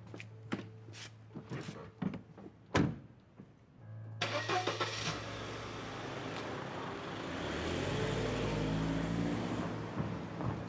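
A few sharp clicks and knocks, then a car engine starts suddenly about four seconds in and runs; from about seven seconds its pitch rises as the car accelerates away.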